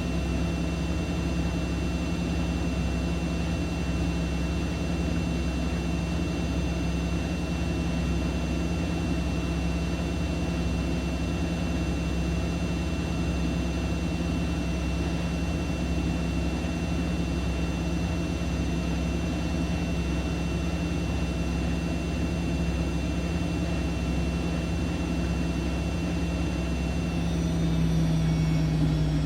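Siemens Siwamat iQ 716 washing machine running, a steady motor hum with a thin high whine over it. Near the end the pitch starts to rise and it gets a little louder as the drum speeds up.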